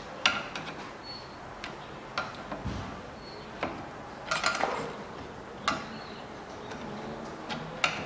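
Sharp metallic clicks and clanks at irregular intervals, with a cluster about four seconds in, as a steel bar levers at the pulley and arm of a Hyundai Solaris drive-belt tensioner clamped in a bench vise. The tensioner's pivot bushing is completely worn, so the arm shifts back and forth.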